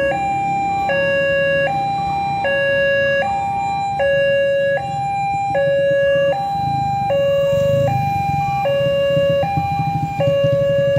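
Railway level-crossing warning sounder alternating between a lower and a higher electronic tone, switching about every three-quarters of a second in an even hi-lo pattern, signalling that a train is approaching and the barriers are down.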